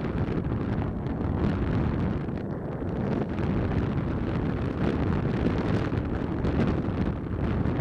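Steady low wind rumble buffeting the microphone of a moving motorcycle's helmet camera, mixed with the motorcycle running along a narrow lane.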